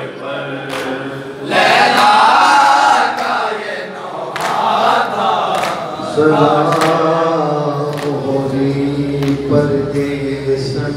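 Men chanting a noha, the Shia mourning lament, in unison through a loudspeaker. Sharp hand strikes of matam keep time with it, about one every second and a bit.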